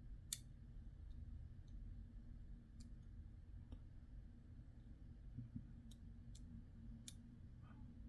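Faint, scattered clicks of small model-kit parts being handled and pressed into place, about six separate clicks over a low room hum.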